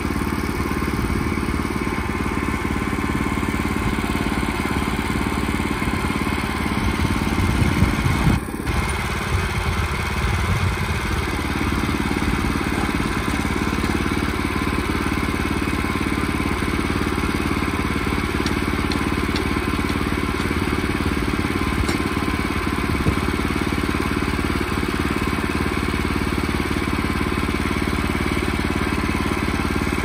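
Portable band sawmill's small engine running steadily at a constant speed, with a brief clunk about eight seconds in.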